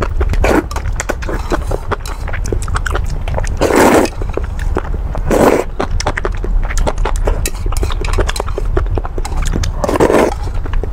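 Close-miked slurping of thin rice noodles in a spicy broth, with wet chewing and mouth clicks between. The longest slurps come about 4 s in, at 5.5 s and near the end. A steady low rumble runs underneath.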